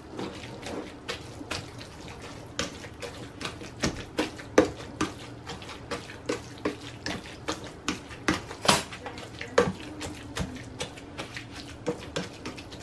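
Black plastic potato masher pressed repeatedly into a wet carrot mash in a non-stick frying pan, giving irregular clicks and knocks against the pan with soft squishing, about three or four strokes a second.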